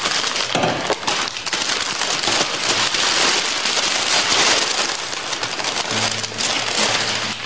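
Shiny plastic gift wrapping crinkling and rustling as it is torn off a large present, with music coming in near the end.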